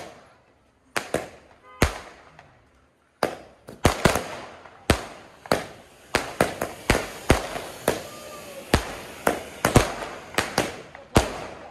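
Aerial fireworks going off in a series of sharp bangs. A couple of bangs come first, then a short lull, then a steady run of bangs about one every half second.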